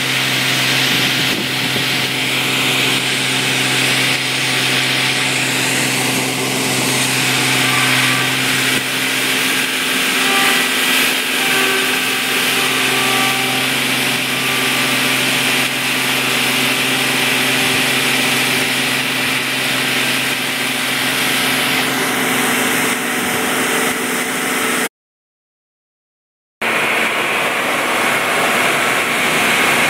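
Heavy farm machinery running steadily: a loud engine hum under a dense mechanical rattle, with a brief total dropout near the end.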